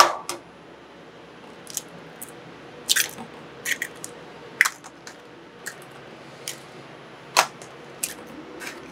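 Kitchen utensils clicking and knocking about ten times at irregular intervals while a large portion of rice is handled for ketchup rice, over a faint hiss.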